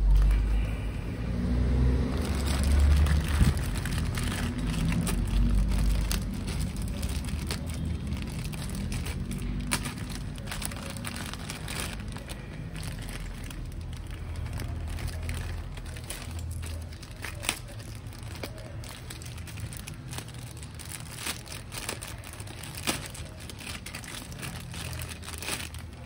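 Plastic bag and wrapping crinkling and rustling as it is handled and pulled off a new exhaust silencer, with many small scattered clicks. A low rumble is loudest in the first few seconds and dies away by about six seconds in.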